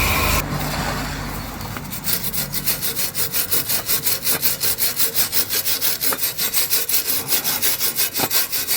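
Rapid back-and-forth scraping, about five strokes a second, starting about two seconds in: the exhaust pipe around a leaking weld joint being scrubbed clean by hand. A car engine's idle fades away in the first couple of seconds.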